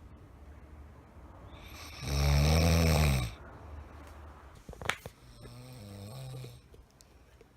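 A sleeping man snoring loudly: one long snore about two seconds in, then a sharp click, then a shorter, quieter snore.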